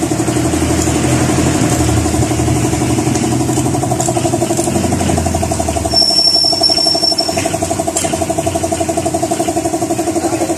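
An engine running steadily, with a brief high-pitched whine about six seconds in and a click near eight seconds.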